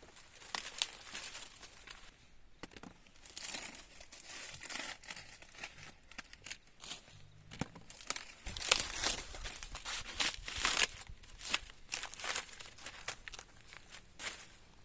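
Irregular crinkling and rustling with scattered sharp clicks, getting busier and louder about halfway through.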